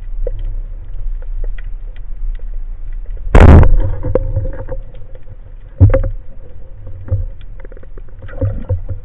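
Water noise heard through an underwater camera housing: a steady low rumble with scattered small clicks. There is a loud sudden burst of noise about three and a half seconds in and a sharp knock near six seconds.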